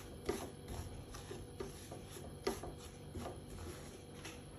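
Spatula scraping and tapping across a nonstick frying pan as semolina is stirred while it dry-roasts over low heat. It is a faint, irregular scraping with occasional sharper taps, the clearest shortly after the start and about halfway through.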